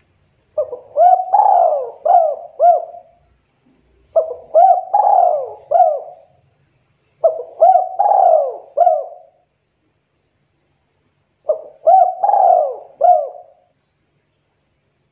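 A caged spotted dove cooing in four phrases a few seconds apart. Each phrase is a short note, a longer main coo, then two short arched notes at the end, the 'kuk 2' song type.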